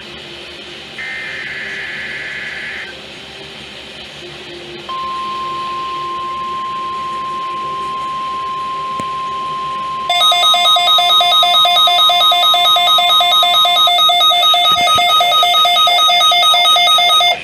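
NOAA Weather Radio weekly-test alert signal: two buzzy SAME digital header bursts, then the steady 1050 Hz warning alarm tone for about nine seconds. About ten seconds in, a weather radio receiver is set off by the test and sounds its own loud, fast-pulsing electronic alarm beeping, which stops just before the end.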